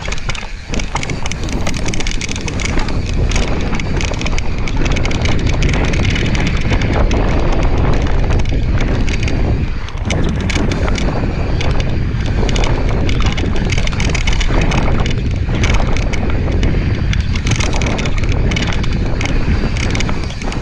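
Wind buffeting the camera microphone during a fast mountain-bike descent, mixed with the constant rattle and knocks of the bike and its tyres running over a rough dirt trail.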